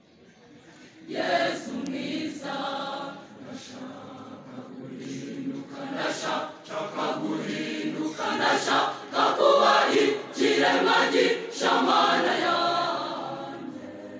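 Large mixed church choir of women's and men's voices singing a hymn together, coming in about a second in after a quiet moment.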